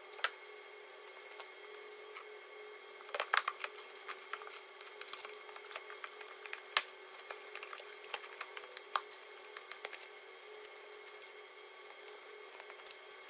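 Plastic air filter housing being handled and seated on the engine: scattered light clicks and knocks, with a cluster of louder ones about three seconds in. A steady hum runs underneath.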